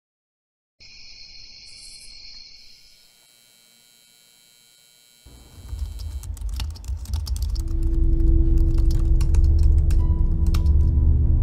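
A high-pitched steady tone sounds about a second in and fades by three seconds. Then, from about five seconds, rapid irregular clicking of typing on a computer keyboard runs over a low droning rumble that swells, with a steady low tone joining.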